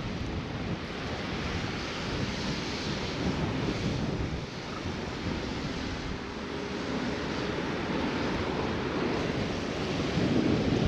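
Steady wind buffeting the microphone, with sea surf washing in the background.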